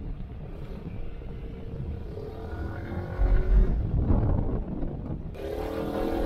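Motor vehicle engine running, its pitch rising about two seconds in and again near the end, with a brief low rumble about three seconds in as the loudest part.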